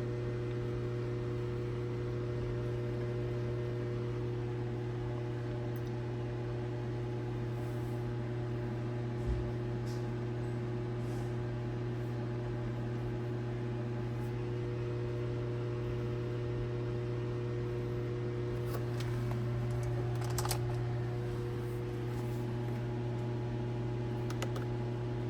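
A steady low hum holding several fixed tones, with a few faint clicks.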